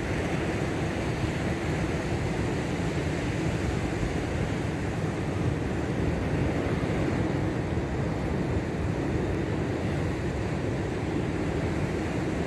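Steady wind and surf noise: a constant rumbling wash with no distinct events.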